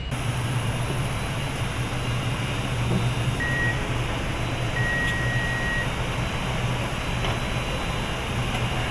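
Steady factory machinery hum on an assembly line, with a short electronic beep about a third of the way in and a longer beep at the same pitch just after.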